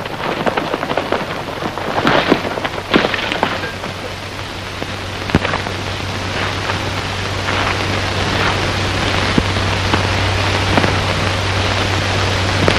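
Surface noise of an old, worn film soundtrack: steady hiss with dense crackling, a few louder clicks or thumps in the first few seconds, and a steady low hum that comes in about four seconds in.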